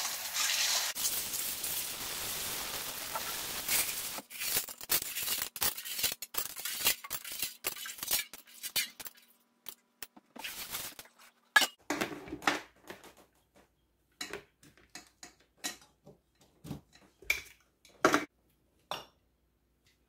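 Tap water running into a stainless steel bowl as chickpeas are rinsed by hand. The water stops about four seconds in and gives way to a string of clinks and knocks as the steel bowls are handled and set down.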